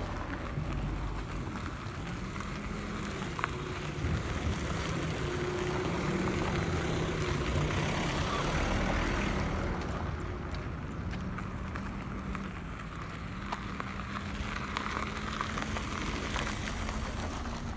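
A motor vehicle engine running, its pitch drifting up and down, over a rumble of road and wind noise.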